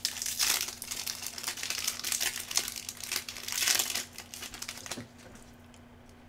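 Plastic wrapper of a Bowman Chrome trading card pack being torn open and crinkled in the hands, a dense crackling rustle that dies down about five seconds in.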